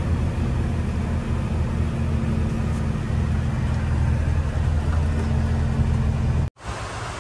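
Semi-trailer truck's engine and road noise heard from inside the cab while cruising, a steady low drone. It cuts off suddenly about six and a half seconds in, giving way to a quieter even hiss.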